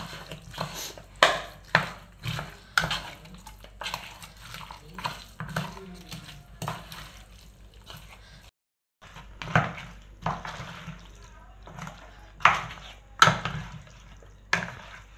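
Metal spoon knocking and scraping against a metal pot while mixing raw pork pieces with masala paste and sliced onions, in irregular clacks. The sound breaks off completely for about half a second a little past halfway.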